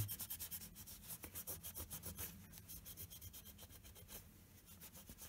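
A piece of gauze rubbed quickly back and forth over the surface of a skull piggy-bank model, wiping off excess plasticine, in short strokes several a second.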